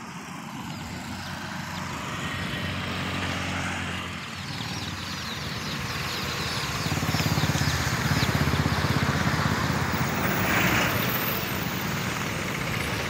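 Road traffic passing, with steady engine and tyre noise that grows louder as a vehicle goes by about seven seconds in. Over it, many chicks peep in quick, high, falling chirps through the middle.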